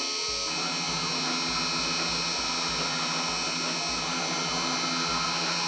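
Mini CNC 2417's spindle motor whining steadily while an engraving bit cuts into a Corian sheet, with a low throb repeating about every half second or so.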